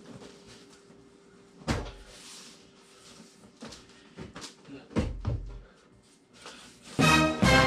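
Several sharp knocks and thuds from things being handled in a small room, the loudest about two seconds in, over a faint steady hum. Music starts near the end.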